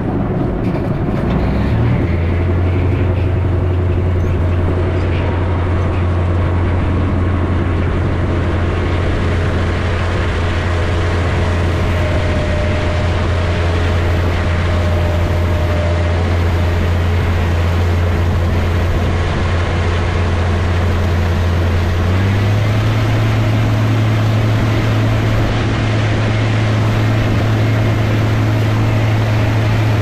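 Case IH 7220 tractor's six-cylinder diesel engine running steadily under load while driving a Kuhn Knight slinger manure spreader that is throwing manure. The low drone steps up slightly in pitch about two seconds in and again about two-thirds of the way through.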